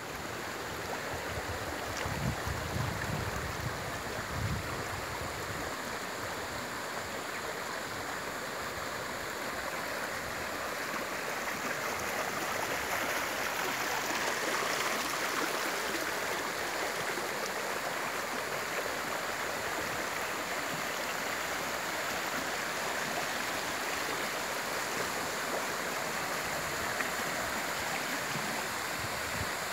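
Shallow stream water rushing over stones in a narrow channel, with a small waterfall cascading down a grassy bank into it: a steady, even rushing noise.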